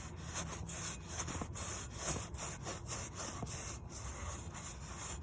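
Rag rubbing and wiping over the oil filter mounting surface of a motorcycle engine in repeated strokes, cleaning off old oil before the new filter goes on.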